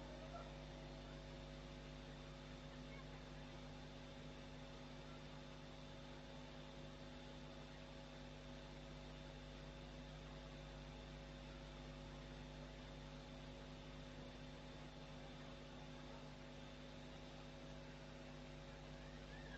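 Near silence with a faint, steady electrical hum from the sound system, several unchanging tones.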